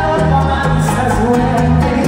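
Live bachata band playing, with electric guitars, bass and singing, amplified through an arena sound system.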